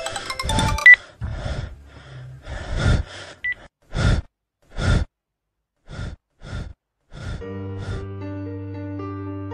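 A man's heavy gasping breaths, one after another, coming further apart and dying away with silences between them. About seven and a half seconds in, soft keyboard music starts.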